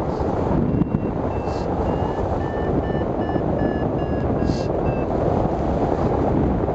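Wind rushing over the microphone of a hang glider in flight, with an electronic variometer beeping in a run of short, evenly spaced tones for about four seconds. The pitch steps up slightly and then falls back, the sign of the glider climbing in lift.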